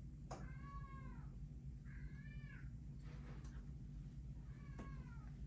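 Domestic cat meowing three times, each call rising then falling in pitch, over a faint steady low hum.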